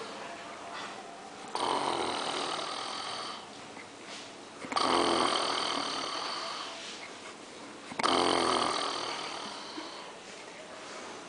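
A sleeping man snoring loudly: three long snores, about three seconds apart, with quieter breathing in between.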